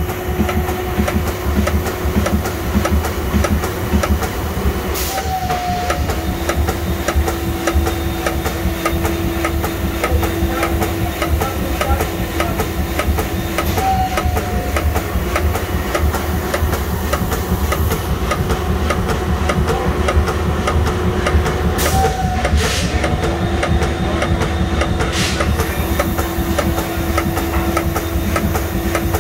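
Square broach held in a CNC mill's locked spindle pecking a square hole into brass: a rapid, steady clatter of short repeated cutting strokes, each shaving about two thousandths of an inch on a diagonal before backing off, over a steady machine hum.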